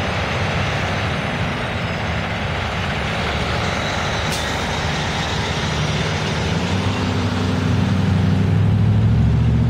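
Heavy diesel truck rig driving past with engine drone and tyre noise, followed by a convoy of pickups and cars. A deeper engine hum grows louder in the second half as the following vehicles come by.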